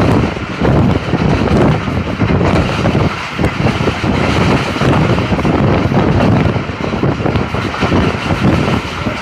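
Heavy wind buffeting a microphone held out of a moving passenger train, over the steady running rumble of the train on the track. The gusts rise and fall unevenly throughout.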